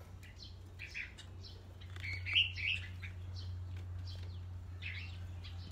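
Caged red-whiskered bulbuls chirping in short, scattered calls, loudest about two and a half seconds in, over a steady low hum.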